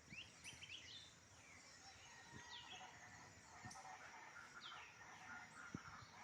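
Faint rural birdsong: scattered short, quick chirps from small birds over a steady high insect drone, with a couple of faint low knocks.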